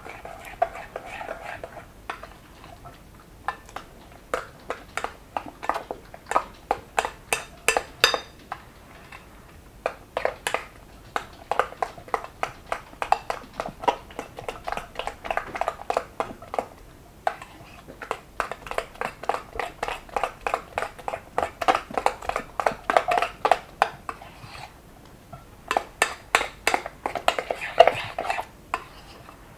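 Wire whisk clattering against a glass mixing bowl, rapid clicking strokes several per second with a few short pauses, as hot crème pâtissière is beaten to work in butter.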